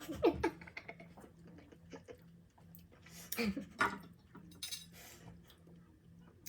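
Someone eating lemon pieces: light clinks of tableware, mouth and sucking sounds, and short strained vocal noises at the sourness near the start and again a few seconds in.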